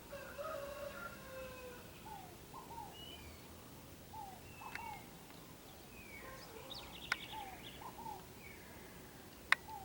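Several wild birds singing: a repeated pair of short falling whistles every second or so, with higher whistled notes and glides above them. Two sharp clicks, one about seven seconds in and a louder one near the end.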